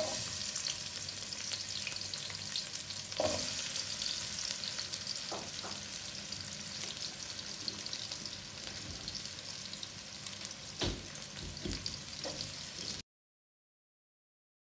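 Sliced onions sizzling and crackling as they fry in hot oil in a metal pot. A couple of knocks sound along the way, and the sizzle stops abruptly near the end.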